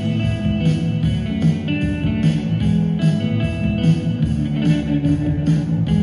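Guitar-led music with a steady beat.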